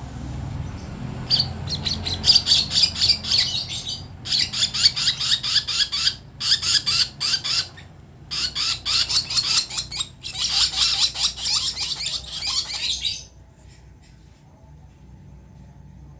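Young lovebird chick calling in fast trains of high chirps, the early sounds of a chick learning to vocalise. It comes in five bursts of a couple of seconds each and stops about thirteen seconds in.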